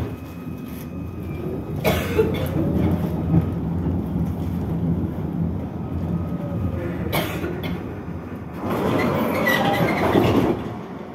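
K1M tram running, heard from inside the passenger car: a low rumble of wheels and running gear that grows louder as it gets under way. There are sharp knocks about two seconds in and again about seven seconds in, and a louder rattling stretch near the end.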